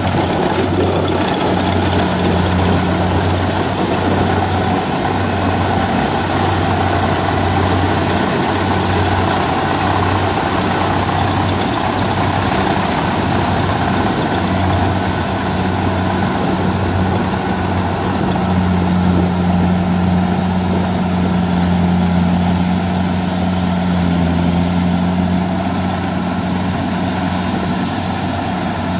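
Kubota rice combine harvester's diesel engine running steadily as the machine cuts and threshes rice: a constant low drone with mechanical noise over it.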